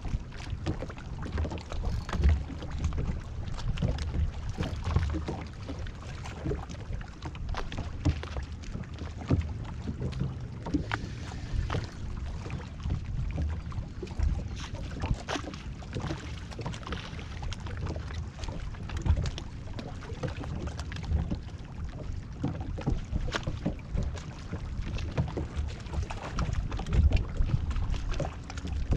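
Wind rumble and small waves lapping against a fishing boat's hull, with scattered short knocks and clicks on deck. Near the end a steady low hum starts, fitting the electric trolling motor being run from its foot pedal.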